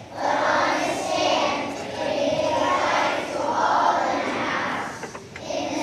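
Children's choir singing together, a large group of young voices, with a short break between phrases about five seconds in.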